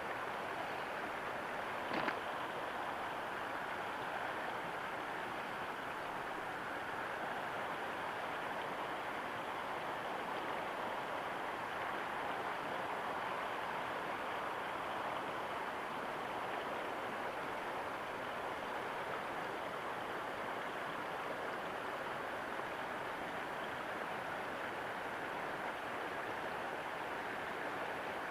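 Fast river current rushing over rocks in a shallow stretch, a steady rush of water. A single sharp click about two seconds in.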